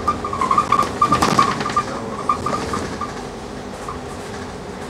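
Cabin noise of a Scania K310UD double-decker bus on the move, with clattering rattles and a stuttering high squeak. Both ease off about halfway through.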